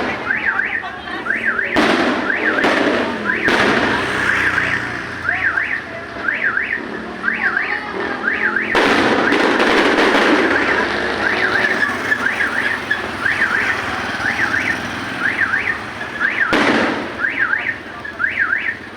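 Fireworks going off: a few sharp bangs in the first few seconds, a longer crackling burst a little under half-way through, and another bang near the end. A car alarm wails over them throughout with a rapid up-and-down siren tone.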